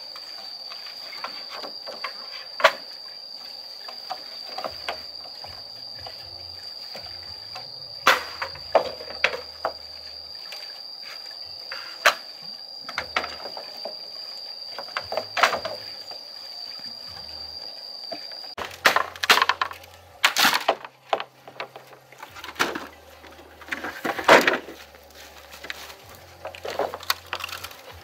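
Scattered sharp knocks and cracks, turning into a dense run of louder cracking and clattering in the last third. Under them runs a steady high-pitched whine that stops abruptly about two-thirds of the way in.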